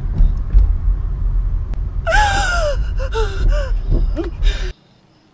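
A young woman gasping and sobbing, with high wavering cries about two seconds in, over the low rumble of a car's interior. It all cuts off suddenly near the end, leaving quiet room tone.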